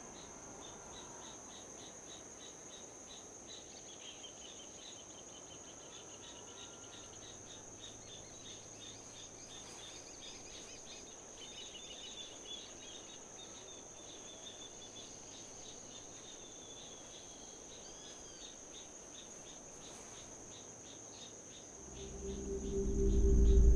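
Field ambience of insects chirping in rapid, regular pulses over a steady high-pitched whine, with a bird calling a few times. About 22 s in, a deep low music drone swells in and quickly grows loud.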